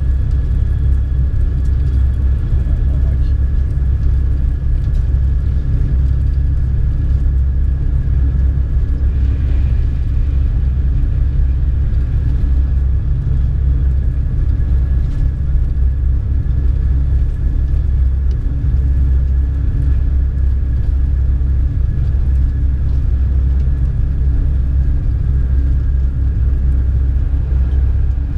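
High-speed train cruising, heard from inside the passenger car: a steady low rumble with a thin steady whine above it.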